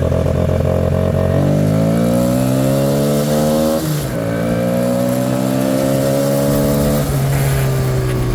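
Yamaha Raptor 80 quad's single-cylinder four-stroke engine pulling hard on a freshly fitted carburetor. It climbs in pitch, drops briefly at a gear change about four seconds in, climbs again in the next gear, then falls back as the throttle eases off near the end.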